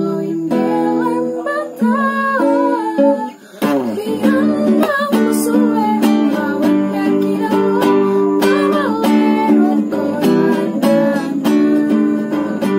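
Background music on plucked strings, with a melody line over steady plucked chords. It dips briefly about three and a half seconds in, then a new phrase begins.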